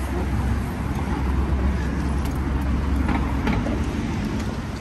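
Town-centre road traffic: vehicles running past with a steady deep rumble.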